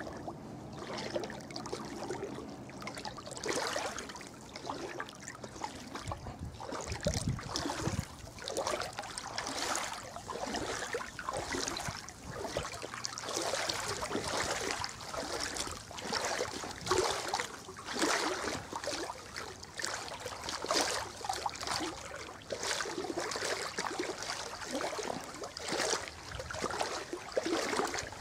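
Water swishing and sloshing stride after stride as a person wades through shallow floodwater in waders.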